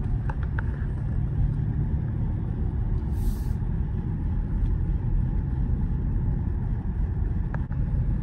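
Mercedes-AMG GLE 53 with its 3.0-litre turbocharged inline-six driving in sport mode at an even pace: a steady low rumble of engine and road noise heard from inside the cabin.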